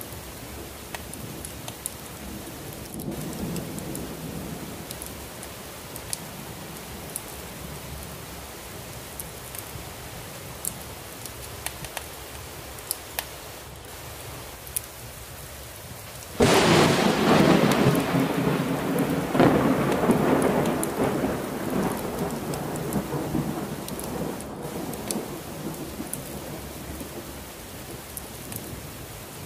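Steady heavy rain, with a soft thunder rumble a few seconds in. A little past halfway a sudden loud thunderclap crashes, surges again a few seconds later, and rolls away in a long fading rumble.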